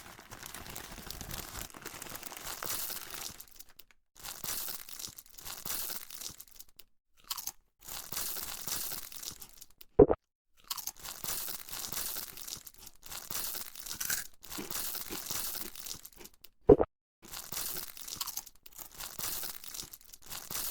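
Chewing sound effect of a mouthful of crunchy cereal: bouts of crunching a few seconds long with short pauses between them. A brief, louder, lower sound cuts in about halfway through and again about two-thirds of the way in.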